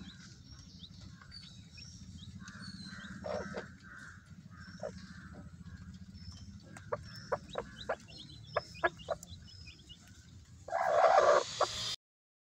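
Mother hen clucking softly among her newly hatched chicks, which peep in many short high chirps. A run of sharp ticks falls in the middle, and a louder hen call comes near the end before the sound cuts off abruptly.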